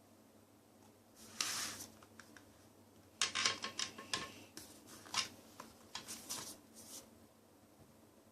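Hands handling a CD album's paper and plastic packaging: a short rustle, then a run of scrapes and light clicks.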